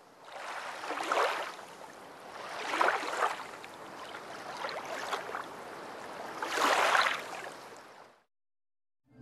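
Waves washing in and drawing back: three strong surges and a weaker one, fading out near the end.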